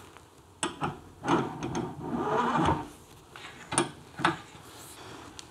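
Steel parts of a homemade vise-mounted tube bender knocking and clinking as they are handled and fitted, with a scraping, rubbing stretch of about a second and a half between the knocks. The loudest knocks come twice near the end.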